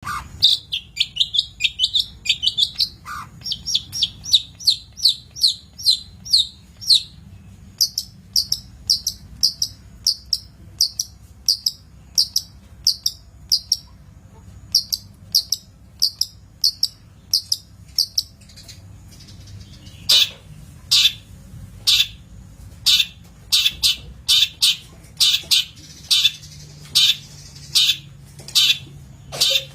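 Long-tailed shrike (cendet) calling in a long run of short, high chirps, quick at first and then slower, turning from about twenty seconds in to louder, harsher calls.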